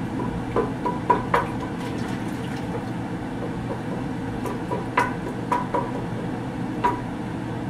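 Wooden spoon stirring and scraping soupy ground meat and stock in a stainless steel stockpot: liquid sloshing, with several sharp knocks of the spoon against the pot.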